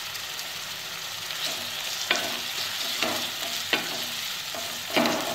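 Onion-tomato masala frying and sizzling in oil in a wok while a wooden spatula stirs and scrapes through it, knocking against the pan four times from about two seconds in.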